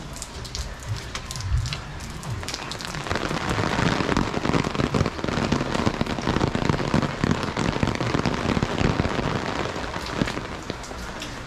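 Rain falling, a dense patter of drops striking a surface. It grows louder and heavier about three seconds in, then eases off near the end.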